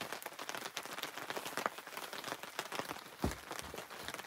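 Rain falling, with many small scattered drop ticks and one dull thump about three seconds in.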